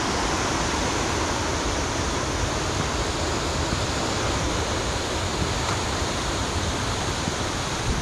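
Rushing water of a rain-swollen waterfall pouring over its drop: a steady, powerful rush.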